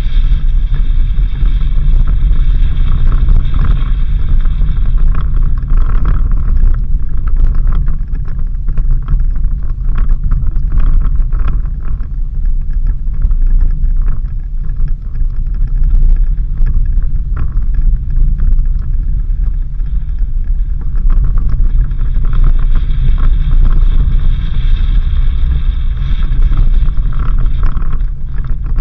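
Suzuki Jimny driving on a dirt road: a steady low rumble of engine and tyres, with frequent short knocks and rattles from the rough surface.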